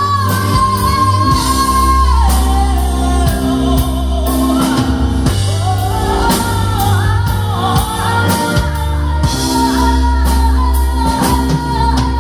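Band music with a high, long-held sung vocal line that wavers and dips lower for a few seconds, over steady bass notes and drums.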